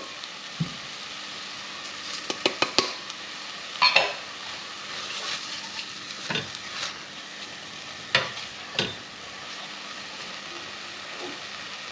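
Silicone spatula stirring and scraping laksa paste as it fries in an enamelled cast-iron pot, over a steady low sizzle. A few sharper scrapes and knocks of the spatula against the pot stand out, a quick cluster about two and a half seconds in and single ones around four, six and eight seconds.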